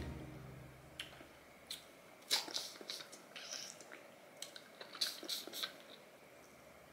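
Someone eating snow crab: chewing, with scattered sharp clicks and cracks from the shells. The loudest come about two and a half seconds in and again about five seconds in.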